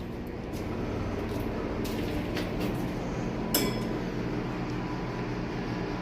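Station elevator running with a steady machinery hum as the car comes to the landing, with a few light clicks and a single bright ding about three and a half seconds in.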